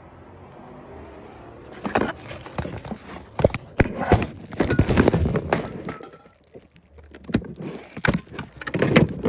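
Close handling noise: a run of sharp clicks, knocks and rustling that starts about two seconds in, eases off briefly past the middle, then picks up again near the end.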